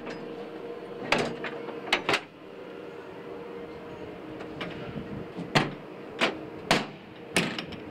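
Sharp metal knocks and clunks from the fire truck's equipment compartment doors and slide-out tray being handled: three in the first couple of seconds and four more in the second half, over a steady hum.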